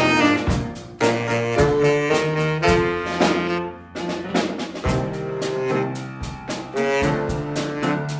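Jazz band recording: a saxophone carries the melody over a drum kit and bass guitar, with the drums keeping a steady beat.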